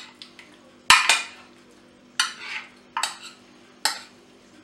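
A metal utensil stirring chopped octopus in a glass baking dish: a series of sharp clinks and short scrapes against the glass, about five in four seconds.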